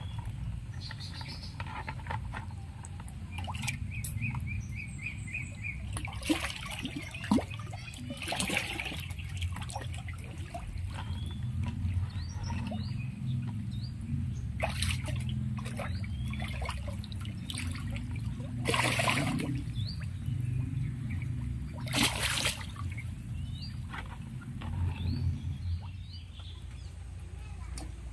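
Catfish splashing and swirling at the surface of a shallow muddy pond as they strike at food from a hand. Several sharp splashes come through it, the loudest about two-thirds of the way in, over a steady low water rumble. Small birds chirp throughout, with a quick run of chirps early on.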